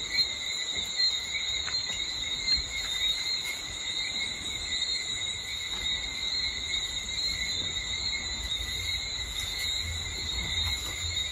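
Steady high-pitched chorus of insects, several unbroken tones layered together, over a low rumble, with a few faint ticks.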